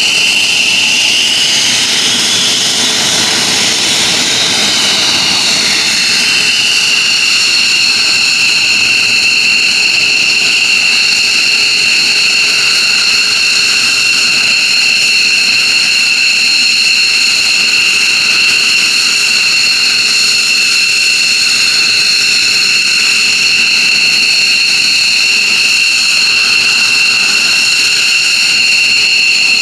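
F-15J Eagle's F100 turbofan jet engines running on the ground: a loud, steady high-pitched whine with two strong tones over a jet rush. One tone slides in pitch during the first few seconds, then settles.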